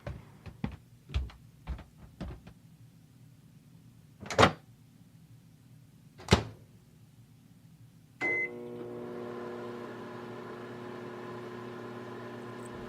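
Light clicks and taps, then two louder knocks, then a short beep and a microwave oven starting up and running with a steady hum.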